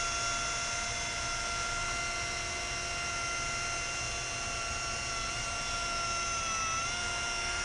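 Handheld electric glass polisher running against window glass with a steady whine, working stains off the pane. Its pitch dips briefly near the end, then steadies.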